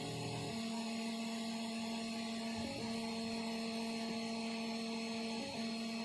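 Prusa 3D printer's stepper motors humming with a steady tone while printing slowly. The tone shifts briefly three times, near the start, about a third of the way in and near the end, as the moves change.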